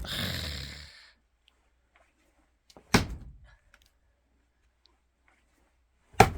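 Axe blows landing on a wet, unseasoned log, each a sharp dull thunk. There are two, about three seconds apart, one about three seconds in and one near the end. The log does not split cleanly because the wood has soaked up water.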